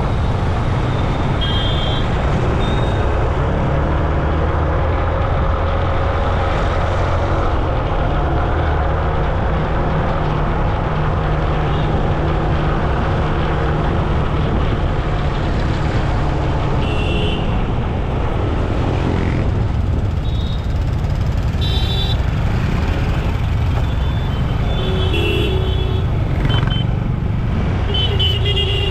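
Road traffic heard from a moving vehicle: a steady, loud rumble of engines and road noise, with several short horn toots.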